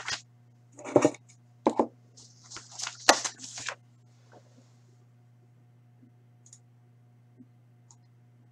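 A clear hard-plastic card case being picked up and moved: a few sharp clicks and knocks with brief rustling in the first four seconds. Then quiet room tone with a steady low hum and an occasional faint tick.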